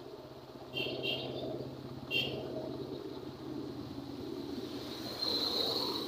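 A small vehicle engine running steadily on the move, with road and wind rumble. Three short high-pitched chirps come about a second in and again around two seconds in. Toward the end a motorcycle comes up close alongside and the sound grows louder.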